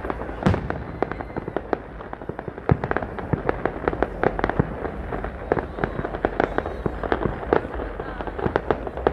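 Fireworks display: aerial shells bursting and crackling, a dense, irregular run of bangs and sharp pops several times a second without a break.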